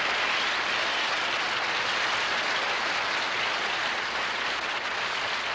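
Studio audience applauding steadily, heard from an old television broadcast's soundtrack.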